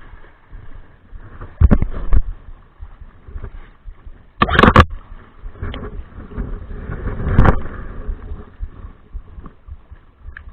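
Water sloshing and splashing, with a few loud splashes about two, four and a half, and seven and a half seconds in.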